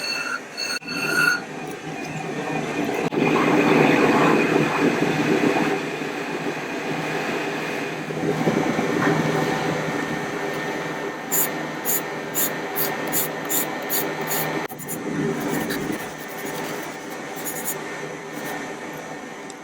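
Steel kitchen knife blade being ground back and forth on a whetstone, a continuous scraping. A run of short, quick strokes comes a little past the middle.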